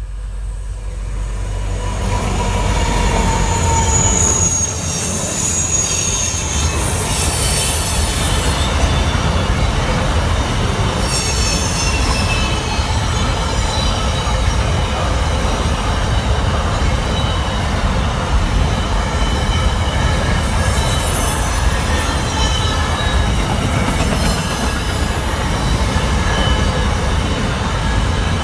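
Aurizon Q-class diesel-electric locomotive Q4012 growing louder as it approaches and passes in the first few seconds. A long freight train of container wagons then rolls past close by with a steady wheel rumble and repeated high-pitched wheel squeal.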